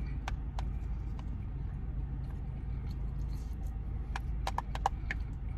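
A steady low hum inside a closed car, with a few small clicks early on and a quick cluster of sharper clicks about four to five seconds in.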